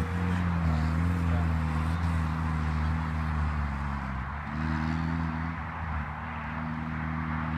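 Renli RL1500 buggy's Chery 1.5-litre engine running as the buggy drives, its pitch holding and then stepping up and down several times with throttle and gear changes.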